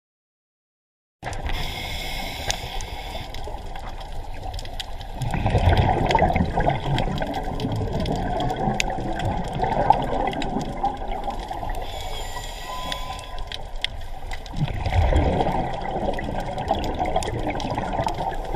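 Underwater scuba-dive sound picked up inside a camera housing: a steady watery rush with fine crackling ticks, starting after about a second of silence. Twice, about 5 s and 15 s in, it swells into a louder bubbling rumble, the exhaust bubbles of a diver breathing out through a regulator.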